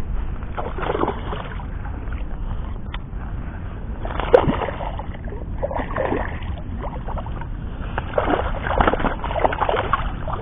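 Hooked black bass splashing and thrashing at the surface as it is played on the line close to the bank, in irregular bursts of splashing that cluster near the end, over a steady low rumble.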